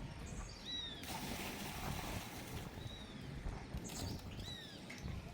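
A bird calling outdoors: several short chirps that fall in pitch, coming singly and in a pair near the end, over faint background noise.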